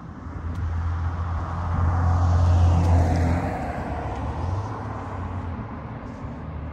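A car passing on the street, its tyre and engine noise swelling to a peak about three seconds in and then fading away.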